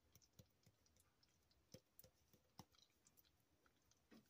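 Near silence: quiet room tone with faint, scattered small ticks and pops.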